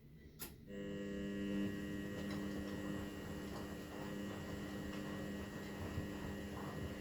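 Continental Edison washing machine: a click about half a second in, then the drum motor starts and runs with a steady hum, turning the drum slowly in a 60 °C wash.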